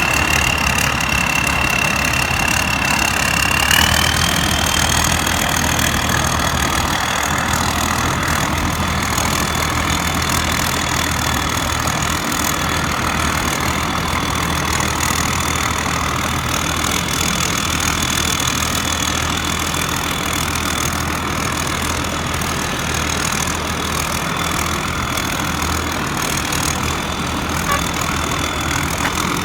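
Rice combine harvester engine running steadily, with a high whine that steps up in pitch about three and a half seconds in and then holds.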